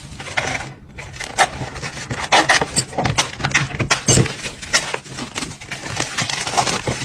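Irregular clatter of knocks, clicks and scraping as parts and tools are handled while an air conditioner is serviced, over a low steady hum.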